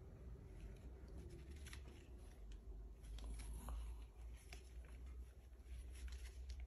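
Faint rustling with scattered light clicks, over a low steady hum.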